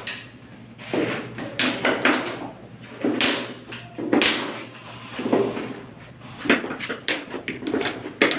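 Irregular sharp plastic clicks and knocks of tile leveling clips and wedges being fitted and tightened against a large wall tile, about nine in all, some in quick pairs.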